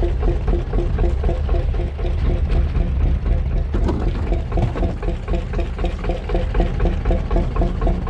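Fishing boat's engine idling: a steady low rumble with a regular beat.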